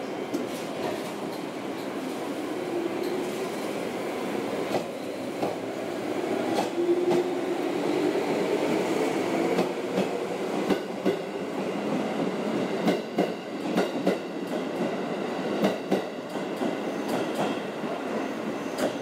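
JR 211 series electric train pulling out and gathering speed: a rumbling run with a hum that rises in pitch, then a run of sharp clacks from about ten seconds in as the wheels pass over the rail joints.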